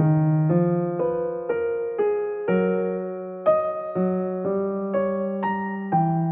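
Background music: soft electric piano playing chords, a new chord struck about twice a second and each fading away.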